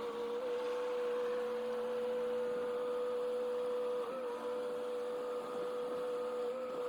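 A machine's engine running steadily with a constant whining hum. Its pitch dips briefly about four seconds in and again near the end, as under a passing load.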